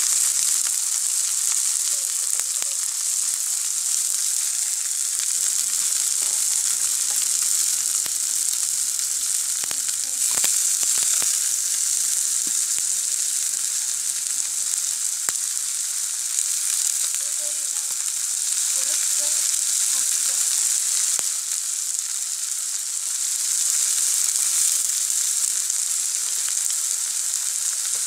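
Sliced vegetables sizzling in oil in a steaming black karahi: a steady frying hiss, with a few brief clicks of stirring about ten seconds in.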